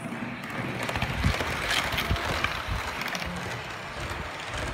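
HO-scale model train running along the track of a home layout, its wheels making a rapid clicking over the rail joints over a steady running rumble, growing louder about a second in as the train passes close.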